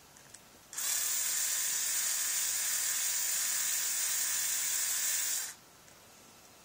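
A steady high hiss that starts suddenly under a second in, holds level for about five seconds and cuts off suddenly.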